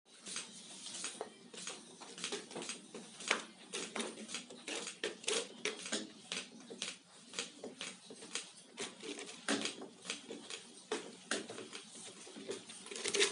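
Lightweight line retriever reeling in 6 mm rope: the rope runs onto the turning spool with an irregular stream of light ticks and clicks, a few a second, over a low rubbing sound.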